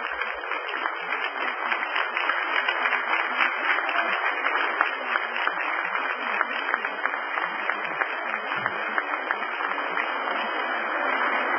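Audience applauding as a standing ovation, a dense steady patter of many hands clapping at once.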